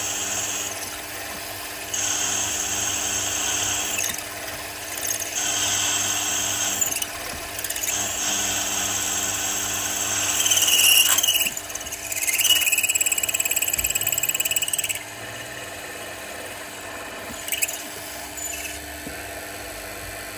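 Milling machine spindle running steadily while a twist drill cuts through a metal casting lug in several separate pecks, each a hissing cutting noise. The loudest pass, about ten to fifteen seconds in, squeals. After that the cutting stops and only the spindle hum is left.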